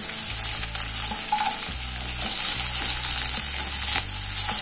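Shallots, green chillies, curry leaves and garlic sizzling in hot oil in a pan as they are sautéed, stirred with a wooden spatula that makes light scraping ticks.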